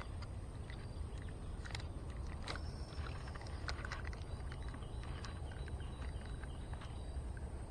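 Outdoor ambience: a steady low rumble with scattered faint clicks and a few short, thin high chirps.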